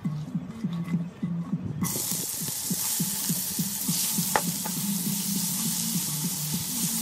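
Food frying in hot oil in a cooking pot, a loud sizzle that starts abruptly about two seconds in, after a few clicks of a utensil against the pot.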